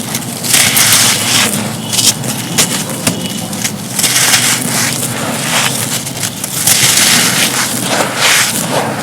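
Both hands crumbling soft, dusty, gritty moulded cups, a dense run of dry, gritty crunching and crackling. Heavier crunches come about half a second in, near four seconds and near seven seconds.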